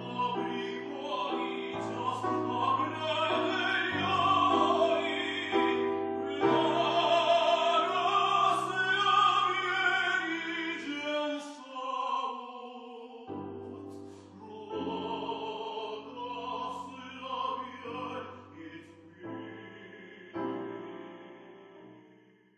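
Operatic singing: a solo voice with wide vibrato over sustained instrumental accompaniment, fading out near the end.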